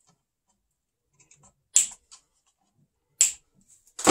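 Two plastic zip ties pulled tight, each a short, sharp ratcheting zip, about a second and a half apart, with a few faint ticks of handling before them.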